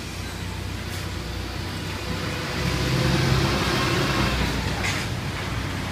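Street traffic with a motor vehicle's engine passing close, swelling and loudest about three seconds in before fading back to a steady hum.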